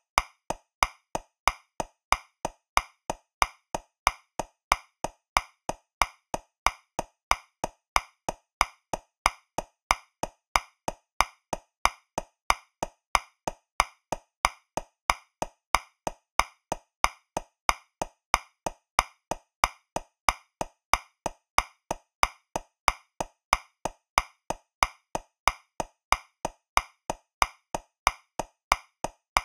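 Metronome clicking at 185 beats per minute, about three clicks a second, in 2/4 time. Every other click is louder, accenting the first beat of each bar.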